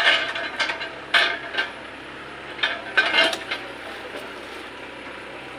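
Sharp metallic clanks and clatter from a tractor-mounted grab loader picking up oil palm fruit bunches, several knocks in the first few seconds, over the low steady hum of its engine; quieter near the end.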